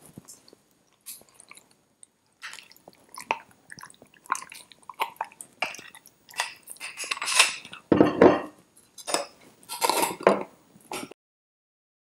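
Metal teaspoon clicking and scraping inside a glass mason jar of honey-covered lemon and ginger slices, in irregular bursts that grow busier and louder, then stop abruptly near the end.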